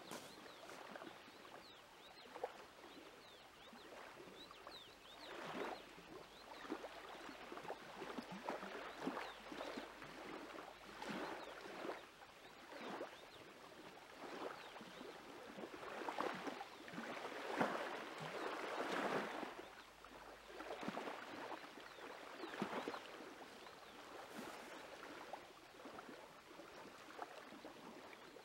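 Faint, irregular wash of small waves lapping at the lakeshore, swelling and falling every second or two.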